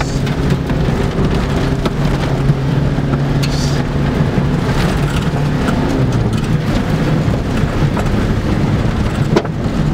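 Opel Corsa 1.5-litre diesel engine running steadily as the car drives over a dirt track, heard from inside the cabin, with tyre and road rumble and occasional clicks and rattles.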